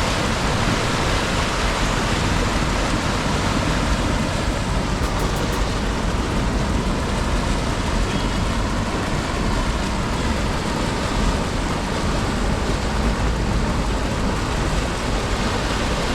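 Heavy rain and rushing floodwater: a steady, unbroken hiss of water.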